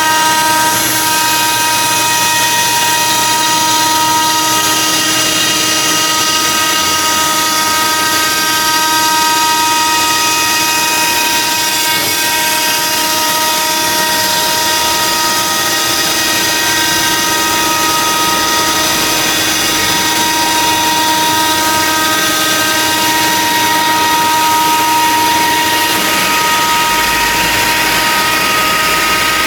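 ELE2128ATC CNC router running steadily: a continuous spindle whine made of several steady tones over a hiss.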